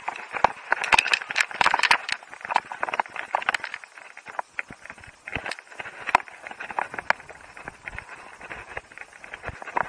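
Skis running over hard snow: a scraping hiss broken by a dense run of sharp clicks and knocks, busiest about a second in, then sparser.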